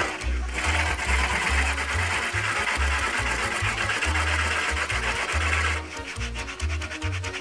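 Small handheld rotary tool running continuously as it grinds at the plastic around a speaker ring opening. Near the end it gives way to the rhythmic scrape of a sanding sponge rubbed back and forth over a trim panel. A steady music beat plays underneath.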